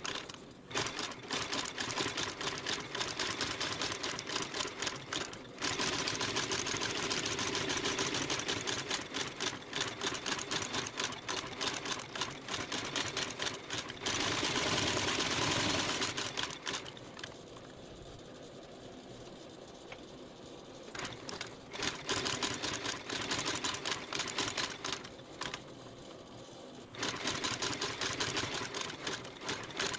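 Shoe-repair trimming machine running with a fast, even clatter as the welt and midsole edge of a work boot are trimmed narrower. It drops quieter for a few seconds past the middle and again near the end.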